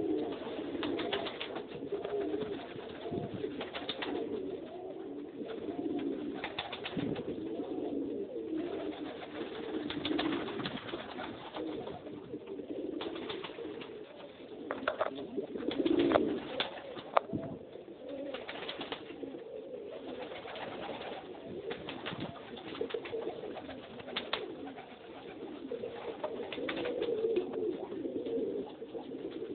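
Several domestic pigeons cooing together, a continuous low murmur of overlapping coos, with a few sharp knocks now and then, the loudest about sixteen to seventeen seconds in.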